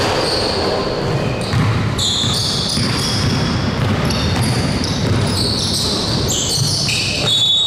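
Basketball game play in a gym: the ball bouncing on the hardwood floor, with short high sneaker squeaks and some voices echoing in the hall.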